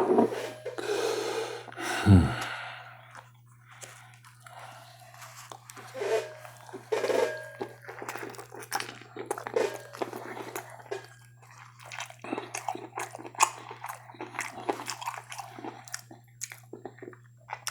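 Close-miked chewing and eating: wet mouth smacks and clicks of a person chewing food, with a couple of louder bites or handling noises in the first two seconds, over a steady low electrical hum.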